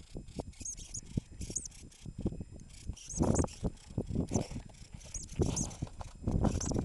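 Norway lemming giving repeated short, high-pitched squeaks, a defensive threat call at a hand reaching toward it. Crunching steps in snow, loudest a little past the middle and near the end.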